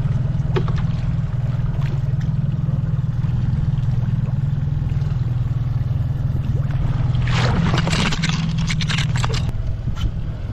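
A boat's motor running steadily at trolling speed, a constant low hum. About seven and a half seconds in comes a two-second burst of scraping and clattering as the landing net with the fish in it is handled.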